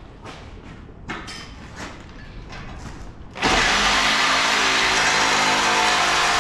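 A few faint clicks, then about three and a half seconds in a power tool starts abruptly and runs steadily and loud.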